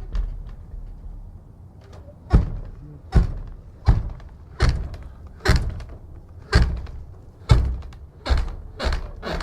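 Heavy wooden church door banging: after a short lull, a series of about nine sharp thuds comes roughly one a second, each fading out with a brief ringing tail.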